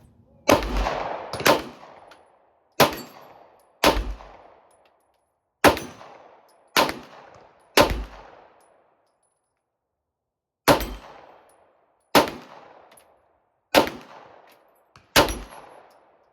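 Eleven 9mm Glock pistol shots, each sharp crack trailing off in echo, fired about a second apart with a longer pause about two-thirds of the way through.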